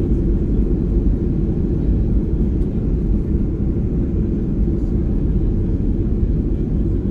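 Steady low rumble of a Boeing 737-800 heard from inside the passenger cabin: engine and airframe noise with no distinct events or changes in pitch.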